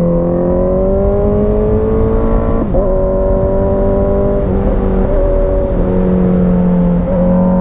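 Sport motorcycle engine heard from onboard while riding, pulling with rising pitch for the first couple of seconds. A quick break about two and a half seconds in, like a gear change, is followed by a fairly steady speed with small throttle changes, over a low rush of wind on the microphone.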